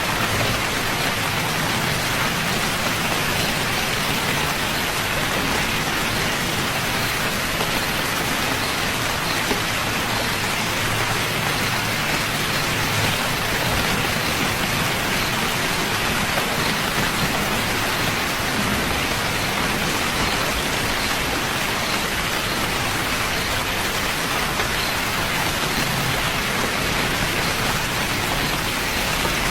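Steady rain falling, an even hiss of drops on surfaces that holds without change.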